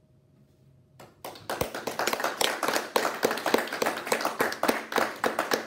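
A few people clapping their hands. It starts about a second in after a brief quiet and carries on as quick, dense, overlapping claps.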